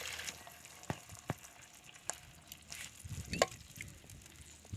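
Food frying in a pan: the sizzle fades away right at the start, followed by scattered sharp clicks and knocks of a utensil against the pan, the loudest about three and a half seconds in.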